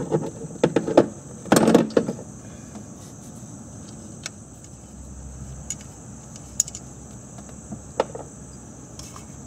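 Plastic wiring-harness connector and speed sensor on an automatic transmission being handled by hand: a cluster of clicks and knocks in the first two seconds, then a few isolated ticks.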